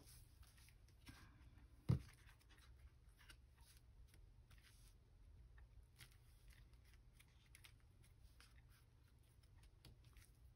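Faint scratching and handling of paper during craft work, with one sharp tap about two seconds in.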